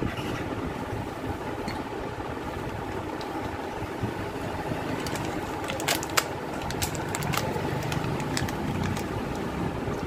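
Steady engine-like rumble in the background, with a run of sharp clicks and rustling from about five to seven and a half seconds in as a paper parts packet is handled and torn open.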